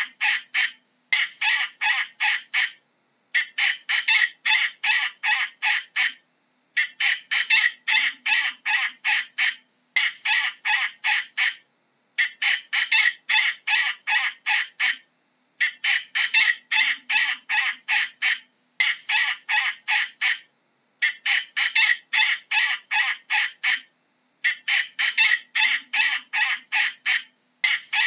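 Falcon giving a harsh, repeated cacking call: rapid runs of grating notes, about five a second. The runs last a second or two and come one after another with short pauses between.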